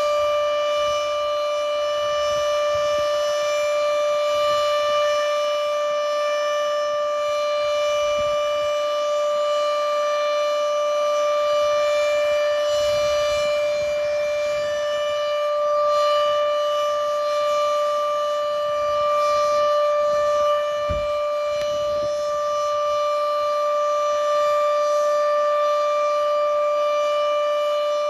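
Outdoor civil defense warning siren sounding during a test, holding one steady tone without rising or falling.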